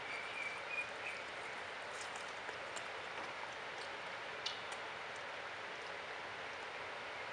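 Capybara chewing watermelon: scattered small clicks and crunches, busiest in the first few seconds as it bites, with a sharper click about halfway through, over a steady hiss.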